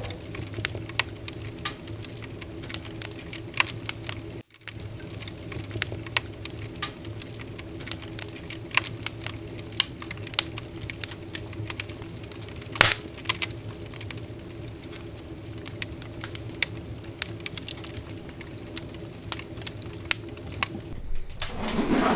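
Wood fire crackling in a tent wood stove: irregular sharp pops and snaps over a steady low hum, with one louder pop about thirteen seconds in.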